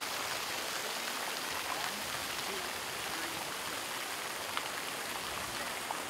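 Fountain jets splashing steadily into the pool: an even hiss of falling water.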